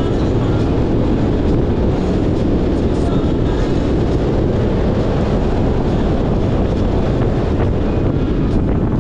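Motorcycle riding at road speed: a steady mix of engine and road noise, with wind rushing over the microphone.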